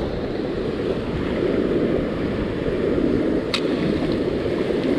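Ocean surf breaking on the beach, a steady rushing noise with wind on the microphone. A single short click about three and a half seconds in.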